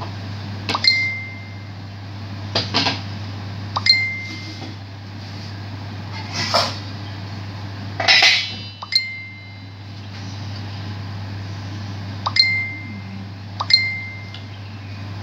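Metal clinks from a wok and a pot lid on a gas stove, each clink ringing briefly at the same pitch, with a rattling clatter about eight seconds in as the lid is set down. A steady low hum runs underneath.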